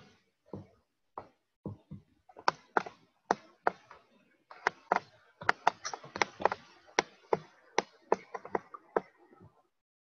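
Irregular sharp taps and knocks, a few a second at first, coming thick and fast in the second half before stopping near the end.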